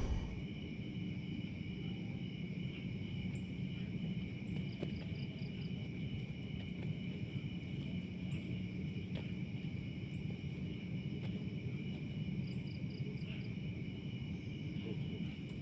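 Night insect chorus: crickets and other insects trilling steadily at several high pitches, with a short rapid run of chirps twice. A low, steady background rumble runs under it.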